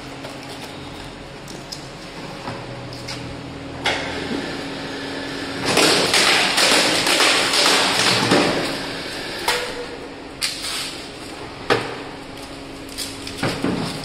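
Motor-driven roller cutting machine running with a steady hum. About six seconds in, a loud noisy stretch of roughly three seconds as the die and plastic sheet pass through the rollers, followed by several sharp knocks as the die is handled.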